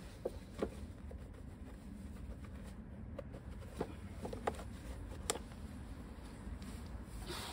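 Light handling noises of a cloth wiping out a Yamaha YBR 125's air filter box: a few short clicks and knocks of hand, cloth and plastic, over a steady low background rumble.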